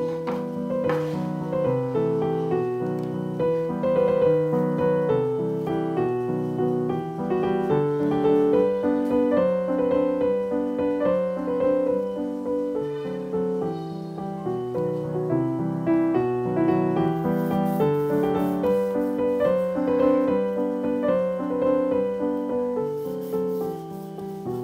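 Background piano music: a light melody of single notes over steady chords.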